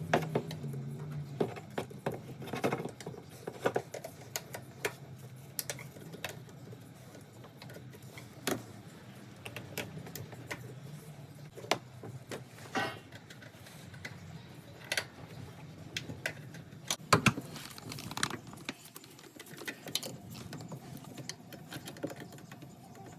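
Scattered metallic clinks and knocks of hand tools on metal parts under the hood, over a low, wavering hum.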